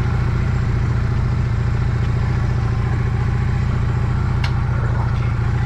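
Motorbike engine idling steadily close to the microphone, with a single faint click about four seconds in.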